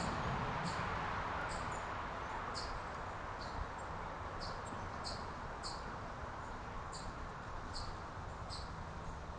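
Short, high chirps repeated irregularly, about one or two a second, from a small backyard animal, over a steady outdoor background hiss.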